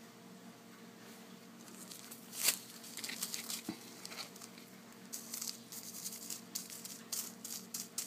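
Small clear plastic bags of glitter crinkling as they are handled. The crinkling comes in short, irregular crackles, starting about two seconds in.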